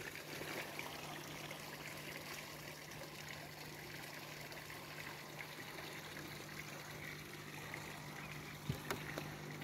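Small artificial garden stream running, its water trickling faintly and steadily.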